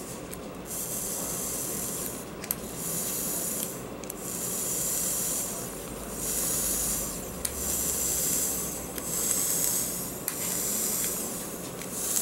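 Coil of a freshly wicked, juice-soaked rebuildable dripping atomizer (Pantheon Vape Lab Veritas RDA) fired again and again with the top cap off. It gives about seven sizzling hisses, each one to two seconds long, with a few sharp pops or clicks between. This is the liquid boiling off the coil as the new cotton is saturated and broken in.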